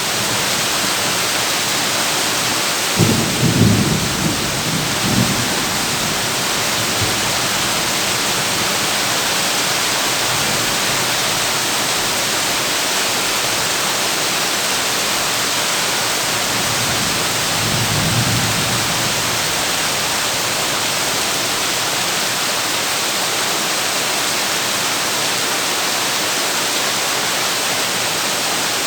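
Heavy rain drumming steadily on a tin roof. Deep thunder rumbles about three seconds in and again around eighteen seconds.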